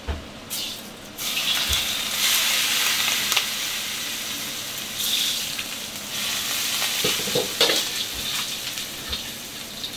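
Hot oil ladled over dried chilies, chili flakes and garlic on a bowl of mao xue wang: a loud sizzle that starts about a second in, is strongest for the next couple of seconds, then slowly dies down.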